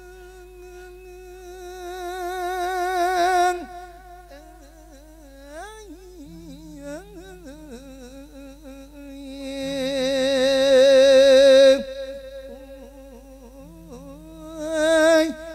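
A monk's voice singing an Isan lae funeral chant for sending off the spirit of the dead, amplified through a microphone: long drawn-out notes with a wavering vibrato and sliding pitch between them. Held notes swell louder up to about three and a half seconds in, again from about ten to twelve seconds, and briefly near the end.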